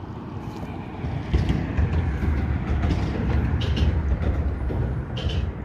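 Low rumble of heavy traffic crossing the nearby highway bridge, building about a second in and easing near the end, with a few faint clicks.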